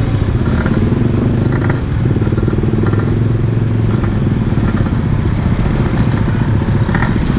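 Yamaha RX-King's single-cylinder two-stroke engine running steadily at low revs while the bike is ridden, through a standard-look aftermarket exhaust.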